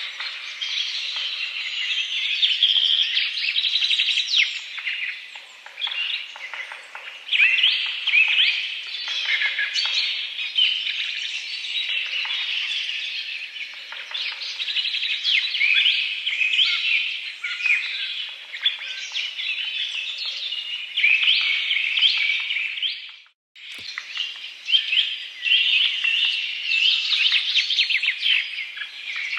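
A dense chorus of songbirds chirping and calling over one another, with many short, quick notes overlapping. The sound cuts out abruptly for a moment about three-quarters of the way through, with a click.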